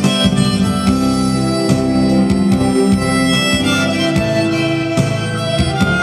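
Harmonica playing a melody into a microphone, a string of held and moving notes over a musical accompaniment.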